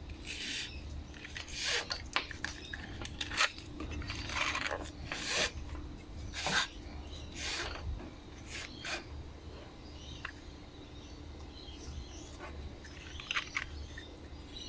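Scraping and rubbing handling noises, a run of short irregular strokes, as the old starter cord is worked out of the recoil starter pulley. The strokes are busiest in the first two thirds and thin out near the end.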